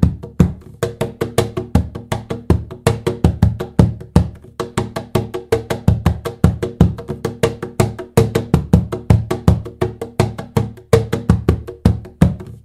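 Birch-ply cajon played by hand with its snare taken off: a quick, continuous rhythm of slaps and deeper body strokes, about five a second, the wooden box ringing after each hit.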